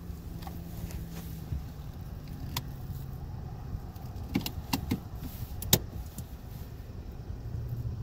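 A car engine idling, heard from inside a car's cabin, with a few sharp clicks and knocks around the middle, the loudest about six seconds in.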